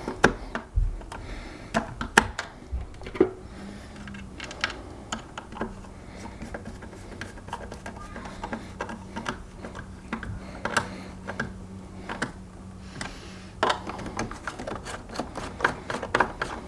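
Irregular light clicks and taps of a hand screwdriver driving screws into a plastic hoverboard shell, with the shell being handled. A faint steady low hum runs through the middle part.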